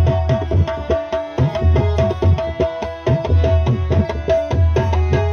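Instrumental break in a Sindhi folk song: a harmonium plays a melody of held notes over a tabla rhythm with deep bass strokes.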